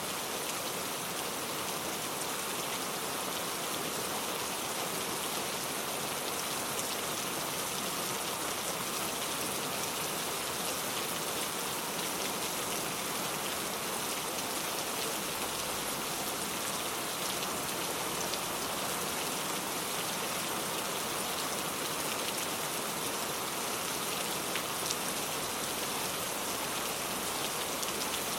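Steady rain falling on a surface, a continuous even hiss with scattered individual drop ticks.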